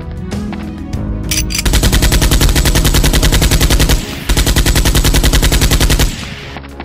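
Rapid automatic gunfire sound effect, about seven shots a second, over background music. It starts just under two seconds in, breaks briefly at about four seconds, and stops about six seconds in.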